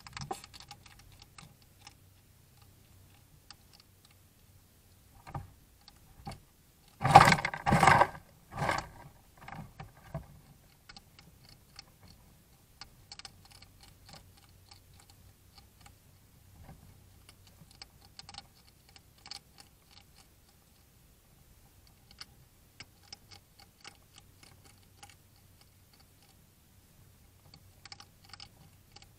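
Two European hedgehogs crunching dry food, heard as scattered, irregular small clicks. About seven seconds in comes a loud cluster of several rustling knocks lasting about two seconds.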